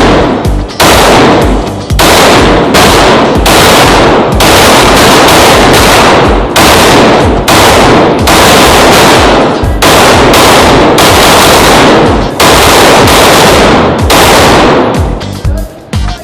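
Glock 19X 9mm pistol fired again and again in quick strings of shots with brief pauses between, each shot ringing on into the next, very loud.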